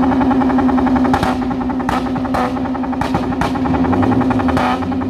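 Motorcycle engine held at a steady rev, with about six short, sharp bursts breaking over it at uneven intervals.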